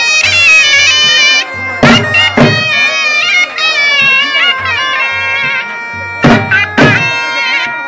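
Reed-pipe music: a steady drone under a wavering, ornamented melody, with two pairs of heavy drum beats, about two seconds in and again near the end.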